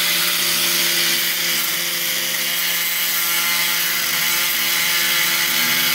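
Angle grinder with a cut-off disc cutting a hole through the metal end of an old boiler hot-water tank, running steadily with the hiss of the disc biting into the metal.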